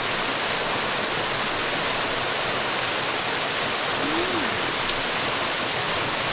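Waterfall pouring steadily, a constant even rush of falling water.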